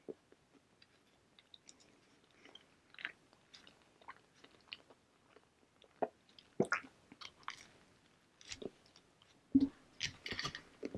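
A person chewing a toasted maple French toast English muffin close to the microphone, with irregular bites, mouth clicks and chewing noises. The sounds get louder from about six seconds in, and loudest in the last second and a half.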